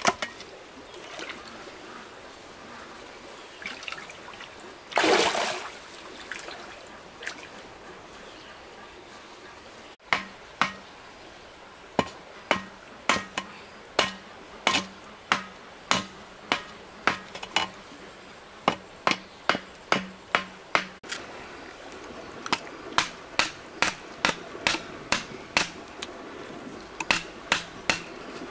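Repeated sharp knocking strikes, about one to two a second, beginning about ten seconds in. They follow a short rush of noise like pouring or splashing water about five seconds in.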